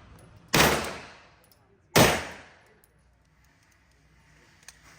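Two handgun shots about a second and a half apart, each followed by an echo that dies away over about a second. A faint click near the end.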